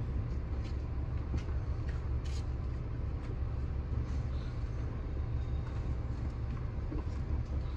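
Steady low rumble inside a car cabin, with a few faint ticks in the first couple of seconds.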